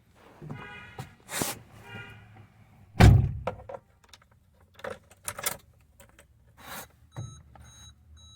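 A car door slams with a loud thunk about three seconds in, among scattered clicks and knocks of someone settling into the driver's seat. Near the end the dashboard starts a short electronic beep that repeats two to three times a second as the ignition comes on.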